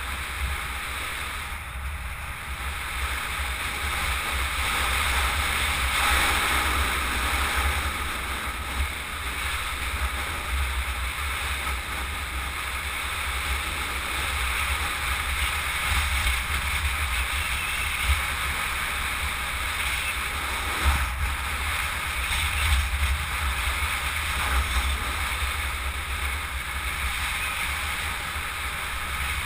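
Wind rushing over a helmet-mounted camera's microphone during a fast downhill run, a steady rumbling buffet with a rushing hiss of road noise over it and small gusty swells.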